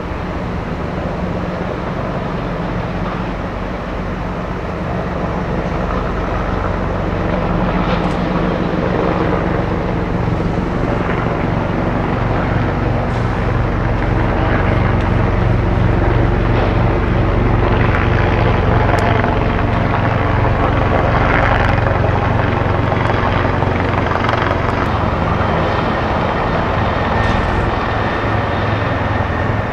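Helicopter flying overhead: a steady, low rotor and engine drone that grows louder over the first half and stays loud.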